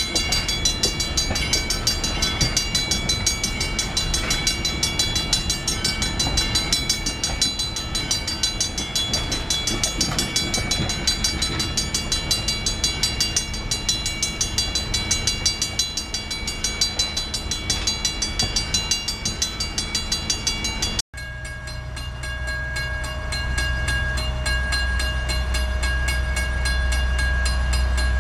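Grade-crossing bell ringing in rapid, even strokes as passenger coaches roll past on the rails. After a cut about 21 seconds in, a steady low rumble of an approaching train that grows slightly louder.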